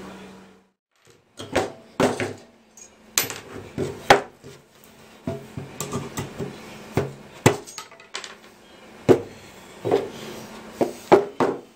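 Hammer knocking on pallet wood at a workbench: a string of sharp, irregular strikes, one every half second or so with short pauses, starting about a second in.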